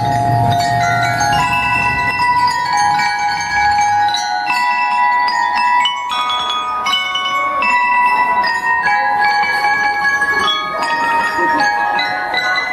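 Bell lyres (marching glockenspiels) playing a slow melody of ringing, sustained metal-bar notes, with no drums. A low hum underneath stops about four seconds in.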